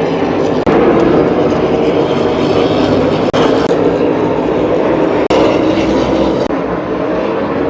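NASCAR stock car V8 engines running hard at racing speed, a loud continuous howl. It is broken by a few abrupt cuts where the sound drops out for an instant and resumes.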